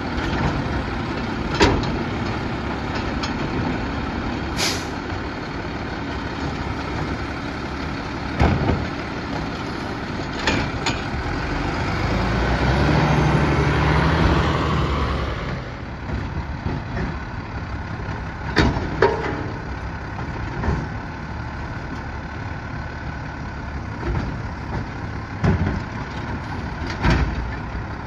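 Mack LEU side-load garbage truck's engine running, with sharp clanks and knocks as the New Way Sidewinder arm dumps a cart and sets it back down. About halfway through, the engine revs for a few seconds as the truck pulls forward. Brief air-brake hisses come and go.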